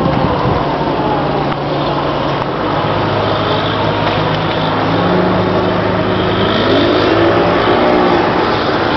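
Cigarette boat's engines running at speed out on the water, a steady engine note whose pitch rises for about a second around seven seconds in.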